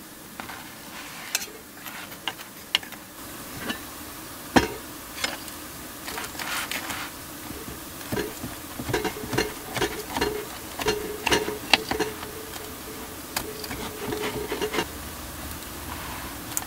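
Table knife and fork working on a toasted sandwich on a wooden cutting board. Scattered clicks and taps, with one louder knock about four and a half seconds in, then a denser run of scraping and tapping as the knife saws through the toast from about eight seconds on.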